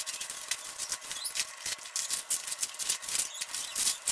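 Bubble wrap rustling and crinkling as it is pulled open and folded back by hand, a dense run of irregular crackles.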